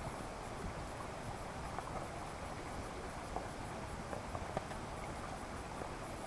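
Faint footsteps of a hiker walking down a rocky trail: scattered light scuffs and taps on rock and leaf litter over a steady background hiss.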